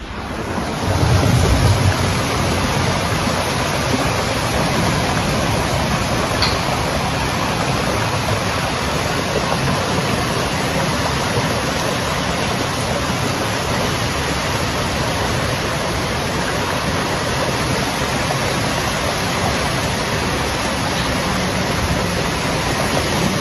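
Steady, even rushing noise of a storm, with a deeper rumble about a second in.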